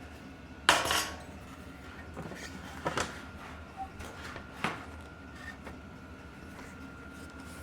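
Scattered knocks and clacks of a mountain bike wheel, tire and tools being handled while the tire is worked onto the rim. The loudest knock, with a short ring, comes just under a second in, and two lighter ones follow at about three and four and a half seconds.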